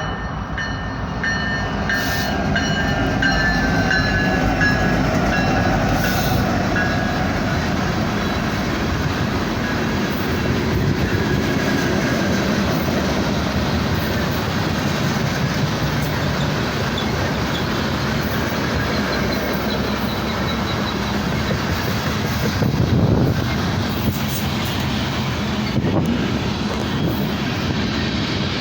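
A loaded BNSF coal train rolling past at close range. Its diesel locomotives' pitched drone falls slowly in pitch over the first several seconds, then a steady rumble and clickety-clack of the loaded hopper cars' wheels on the rail joints goes on, with a louder swell about 23 seconds in.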